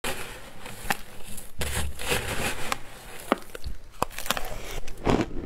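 A metal spoon scraping and digging into a tub of shaved ice, a run of crisp, crunchy scoops with a few sharp clicks. Near the end a mouthful of the ice is bitten and crunched.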